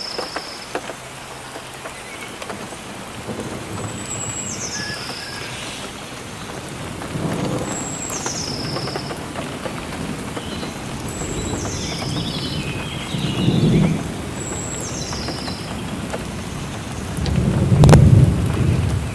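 Steady rain with low rolls of thunder, the loudest near the end. A bird repeats a short high call that steps down in pitch, about once every three and a half seconds.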